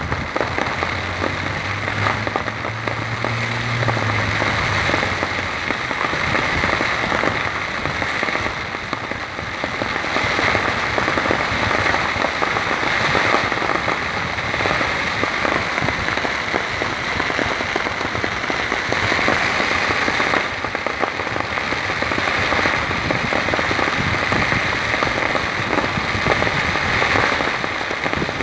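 Fireworks going off in a dense, unbroken crackle of many small bursts, kept up at an even loudness throughout.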